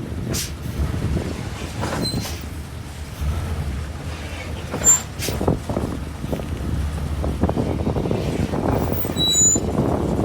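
Heavy diesel equipment running with a steady low rumble, broken by irregular knocks and a sharp bang about halfway through, plus a few brief high squeaks.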